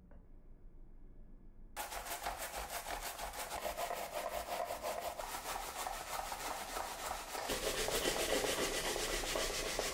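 Onion being grated on a plastic hand grater, a fast, scratchy back-and-forth rasping of flesh over the teeth that starts suddenly about two seconds in. About seven and a half seconds in, the grating turns to an apple and the sound gets lower.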